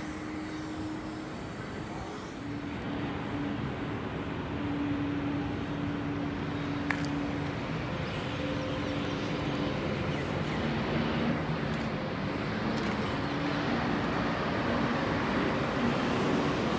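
Jet aircraft engine noise across an airport: a steady wash of sound with a low drone, slowly growing louder.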